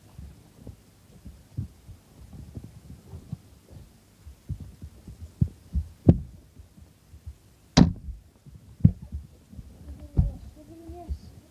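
Irregular low thuds and knocks from a cardboard box and its contents being handled close to the microphone, with one sharper, louder knock about two-thirds of the way through.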